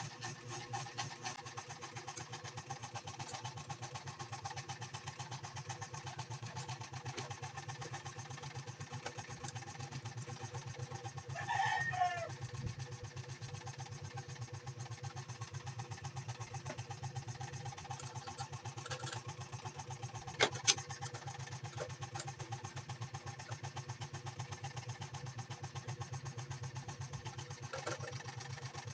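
A rooster crows once, about twelve seconds in, over a steady mechanical hum with a fast flutter. A couple of sharp clicks come near the twenty-second mark.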